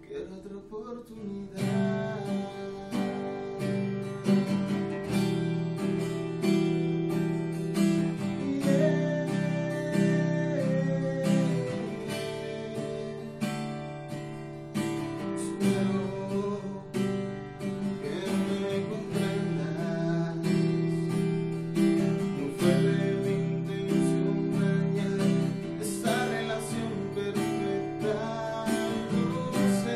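Cutaway acoustic guitar strummed in a steady rhythm, with a man singing at times.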